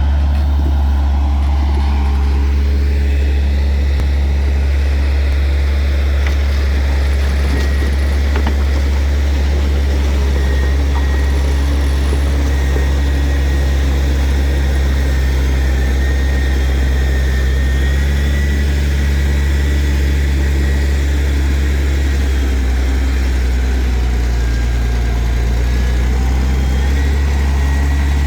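Heavy diesel engine of earthmoving machinery running steadily: a deep, continuous drone with a faint thin whine above it.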